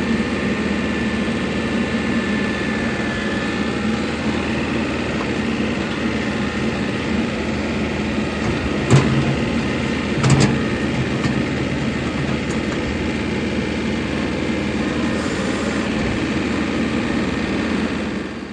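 Tractor engine running steadily while pushing up a manure pile, with two clunks about halfway through. The sound cuts off suddenly at the end.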